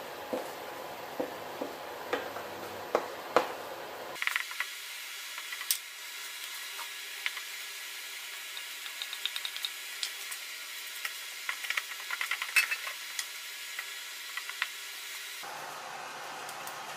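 Wooden spatula stirring instant noodles in a stainless steel pot, with irregular taps and scrapes against the pot over a steady hiss.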